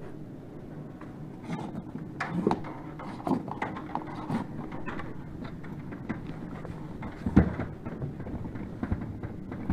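Irregular light knocks and rubbing from blue Category 6 data cable paying out of its cardboard boxes as it is pulled, over a steady low hum.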